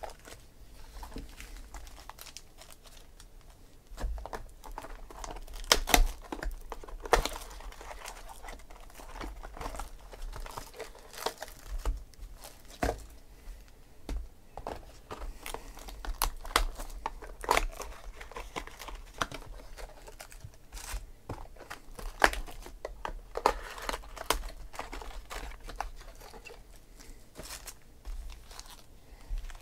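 Cellophane shrink-wrap on Topps Gold Label baseball card boxes crinkling and tearing as it is pulled off, with card packs rustling and tapping as they are handled and stacked. Irregular crackles throughout, with a few louder crinkles now and then.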